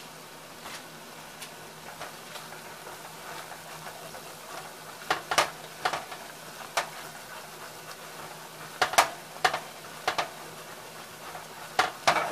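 Butter-and-flour roux sizzling steadily in a saucepan as it is stirred with a whisk. From about five seconds in, the whisk clicks sharply against the pan several times.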